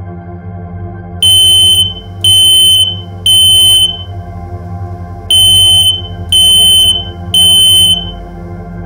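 Smoke alarm sounding the three-beep evacuation pattern that signals smoke detected: two sets of three loud, high-pitched beeps about a second apart, with a pause between the sets. A steady, sustained organ-like music bed plays underneath.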